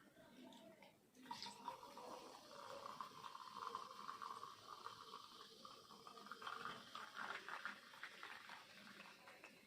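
Faint steady watery hiss with small crackles, from about a second in to near the end.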